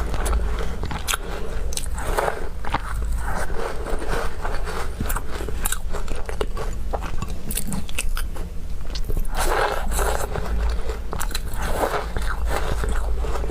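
Close-up chewing of crumbly walnut cookies: steady biting and crunching with many small crackles, swelling louder a few times.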